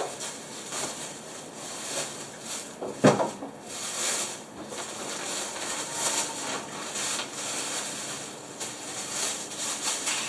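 Plastic bag rustling and crackling while laundry is loaded by hand into a top-loading washing machine, with one dull thump about three seconds in as something drops into the drum.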